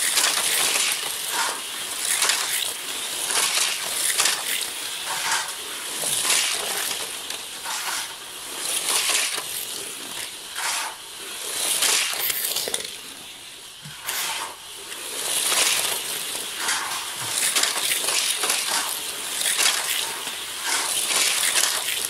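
Matchbox Scorpion battery-powered toy cars running on a laminate floor: small electric motors whirring and plastic wheels rattling along. The sound swells and fades every second or two as the cars pass, and is quieter around the middle.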